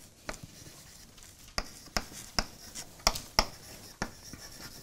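Chalk writing on a blackboard: about eight sharp taps of the chalk striking the board, roughly every half second, with faint scratching between strokes.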